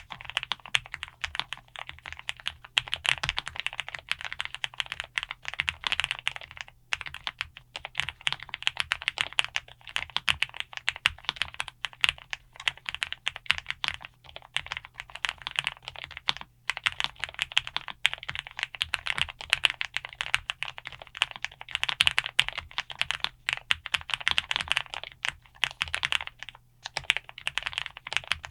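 Fast continuous typing on a KZZI I75 low-profile mechanical keyboard with Kailh White Rain low-profile switches, a dense stream of key clacks. Three short pauses break it, about 7, 16 and 27 seconds in.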